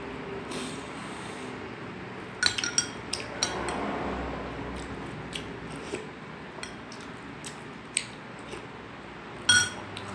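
Metal spoon clinking against the dishes of a meal: a quick run of sharp, ringing clinks about two and a half seconds in, lighter taps through the middle, and one loud ringing clink near the end, with eating noises between them.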